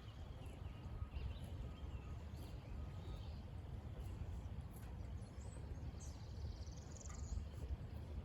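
Outdoor rural ambience: a steady low rumble with a few faint, high bird chirps from about five and a half to seven and a half seconds in.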